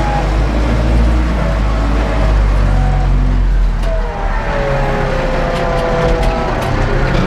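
Ursus 914 tractor's diesel engine working hard at about 1700 rpm, heard from inside the cab, as it pulls a disc harrow through heavy clay. A wavering whine sits above the steady engine note, and the engine's low note shifts about four seconds in.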